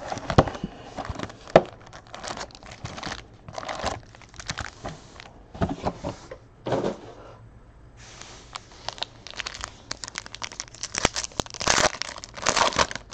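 Cardboard hobby box and foil trading-card packs being handled, with irregular rustling and sharp crinkles; a foil pack wrapper is torn open near the end, where the crinkling is densest. There is a short quieter pause a little past halfway.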